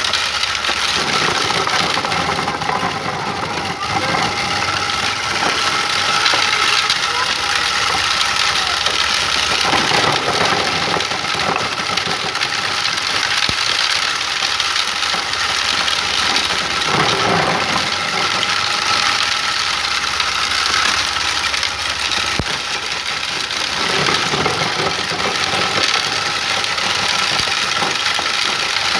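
Motor-driven homemade wooden corn sheller running steadily with a constant whine. Its sound swells a few times as maize cobs are fed through and stripped of their kernels.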